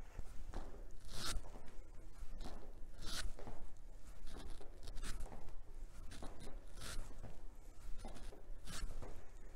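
Rhythmic swishing of clothing and light steps on the floor from step-out jumping jacks, about one swish a second, the stronger ones every two seconds as the arms swing overhead and back.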